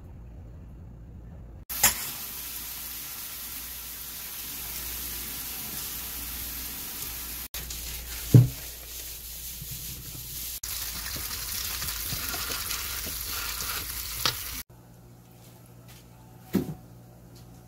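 Water pouring and splashing into a stainless steel mesh strainer in a sink as boiled somyeon noodles are drained and rinsed, a steady hiss. The pot knocks loudly against the strainer about eight seconds in, and there is a shorter knock near the end.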